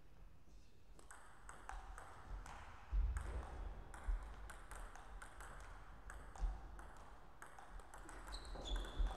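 Table tennis ball clicking sharply, several light clicks a second, as it strikes the bats and bounces on the table in a rally. A louder low thump comes about three seconds in.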